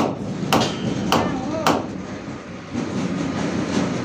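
Hammer blows struck at a steady pace, about one every 0.6 s, each with a short ring after it; the blows stop about halfway through and a rougher, steadier working noise follows.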